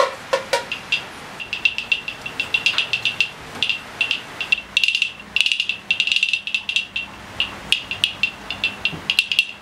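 Two or three last taps on a small hand drum, then a wooden bead rattle toy shaken in quick, irregular bursts of clacks with a light high ringing.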